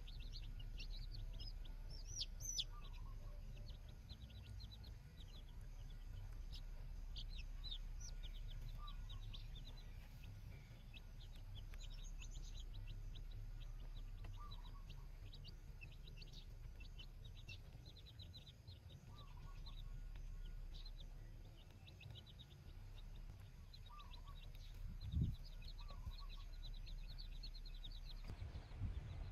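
Baby chicks peeping: many rapid, short, high-pitched chirps, over a low steady rumble. A single thump about 25 seconds in.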